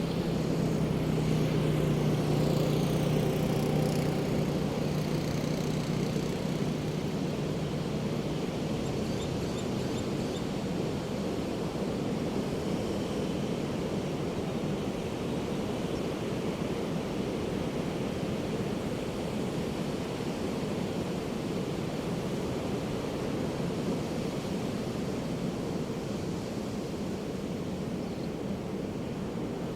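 Steady wash of Pacific surf on a beach. Over the first several seconds a low, steady engine hum sits under the surf and fades out.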